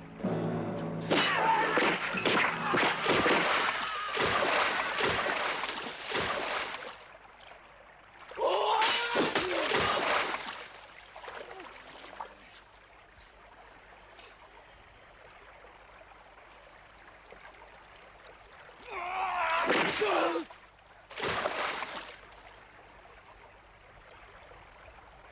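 Heavy splashing and thrashing in water in several loud bursts, with men shouting and crying out among the splashes. The longest burst comes early, another follows, and two short ones come near the end after a quieter stretch.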